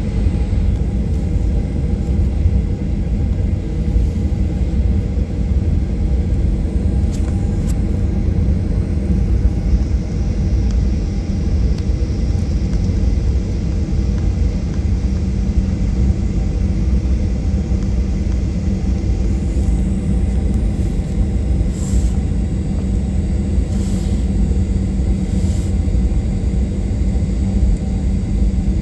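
Airliner cabin noise while taxiing: a steady low rumble of the engines at taxi power and the wheels rolling on the taxiway. A few light clicks come in the second half.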